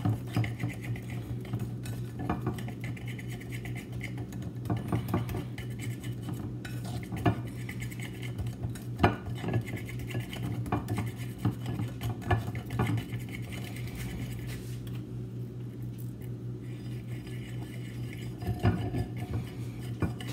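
Whisk beating batter in a bowl: a steady run of quick, irregular clinks and taps as the whisk strikes the bowl, over a steady low hum.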